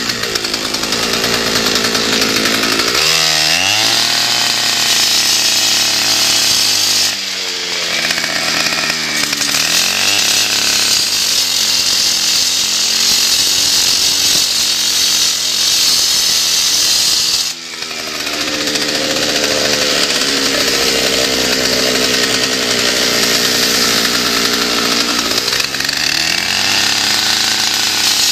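Concrete saw cutting crack control joints into a concrete slab: a steady, loud grinding hiss over the motor, whose pitch sags and climbs back several times as the blade loads and frees up, with brief drops near 7 and 17 seconds in.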